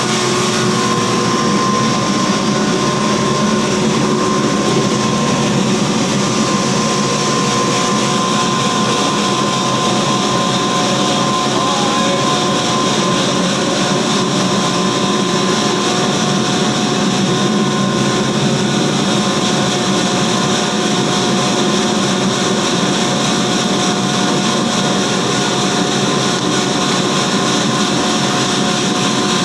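Poultry feed grinder machine running steadily: a loud, constant mechanical din with several steady tones through it.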